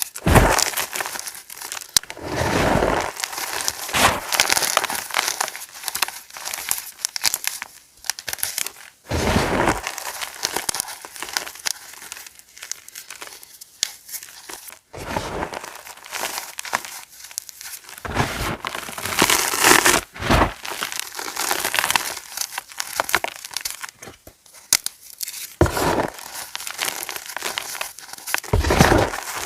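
Fresh gym chalk being crushed and crumbled: crisp crunching and crackling in repeated bursts, with short quieter gaps between them.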